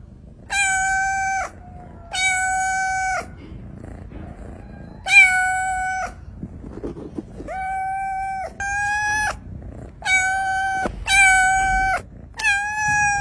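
A kitten meowing repeatedly: about eight loud, high calls, each held at a nearly steady pitch for under a second. Some calls come in quick pairs.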